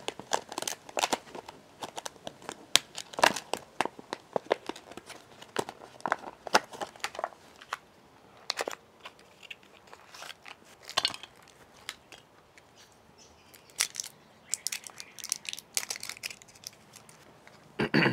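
Plastic packaging crinkling and rustling as a small cardboard box and wires are handled, with many short clicks. Dense for the first several seconds, then sparser.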